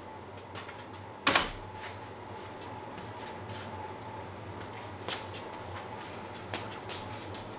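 One sharp, loud knock about a second in, with a short ring after it, followed later by a few lighter knocks and clicks as someone moves around tables in a small room. A steady low hum runs underneath.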